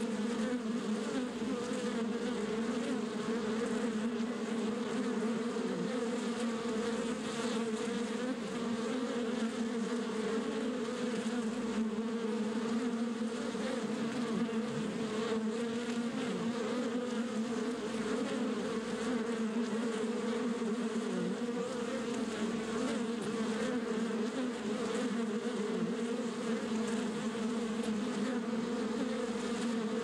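Many honey bees buzzing together at a wild comb: a steady, even drone at one constant pitch, without a break.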